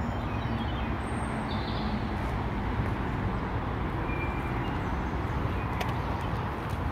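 Steady outdoor background rumble, with a few faint bird chirps.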